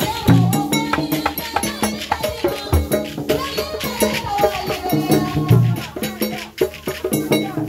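Didadi music: a fast, dense beat of rattles and drums over a low melodic phrase that repeats about every two and a half seconds.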